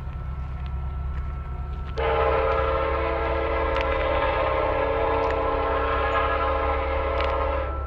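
Train horn sounding one long held blast, starting about two seconds in and lasting nearly six seconds, over a steady low rumble of a running train.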